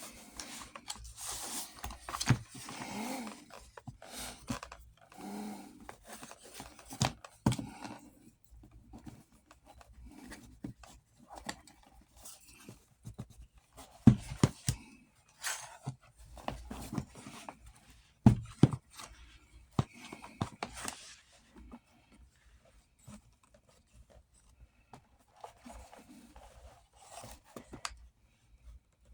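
Hands working on a Western saddle's leather straps and buckle hardware: irregular scraping, rubbing and rustling, broken by a few sharp knocks, the loudest two about 14 and 18 seconds in.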